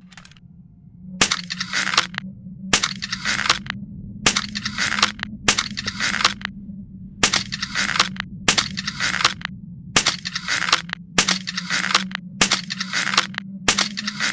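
Hussite crossbow sounds: a run of about eleven sharp clicks, each followed by a short rasping scrape of under a second, coming roughly every second and a half over a steady low hum.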